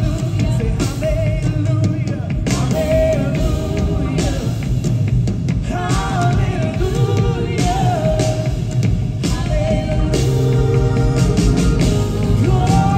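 Live worship band playing a rock-style song: lead vocals over electric guitars, keyboard and a drum kit, heard through the hall.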